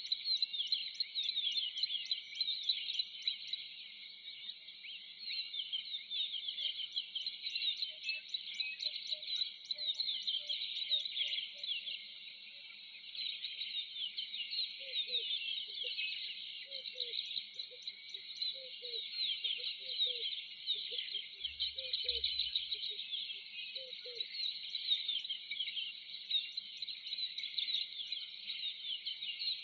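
Natural bush ambience: a dense, steady chorus of many high chirping calls from birds and insects. A lower call repeats in short pulses through much of it.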